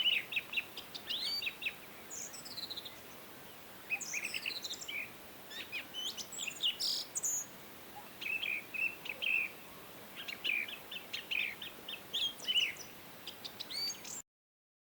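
Several songbirds chirping and calling: quick runs of short notes and falling whistles, one after another, over a faint steady background hiss. The sound cuts off abruptly near the end.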